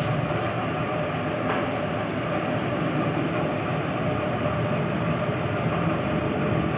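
A steady, unchanging machine drone with a constant hum note running under it; a faint click sounds about a second and a half in.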